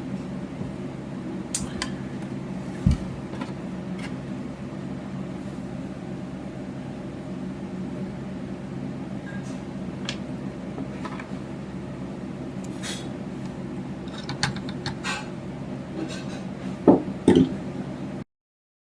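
Scattered clicks, taps and knocks of hard objects being handled over a steady low hum, with one heavier knock about three seconds in and a few louder clunks near the end; the sound cuts out abruptly shortly before the end.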